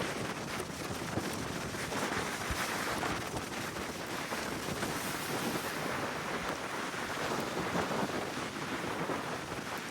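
Strong gale wind buffeting the microphone over heavy storm surf crashing on the shore, a steady rushing noise that swells and eases.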